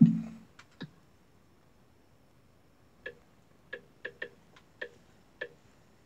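A string of short, light clicks, irregularly spaced and most of them bunched about halfway through, as the YouTube menu on a TV is scrolled through with the remote. The TV show's sound cuts off right at the start.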